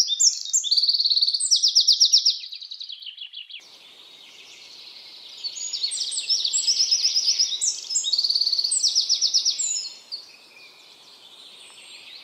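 Songbird singing loud, fast trilling phrases: one at the start, a longer one from about five to ten seconds in, and another starting near the end. Low background hiss comes in partway through.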